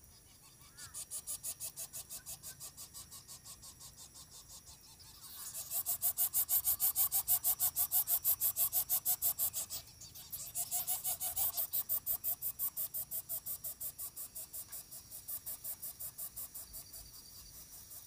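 Lesser coucal nestlings begging while being fed, a rapid rhythmic rasping hiss at about five pulses a second. It starts about a second in, is loudest in the middle, breaks off briefly, then resumes and fades.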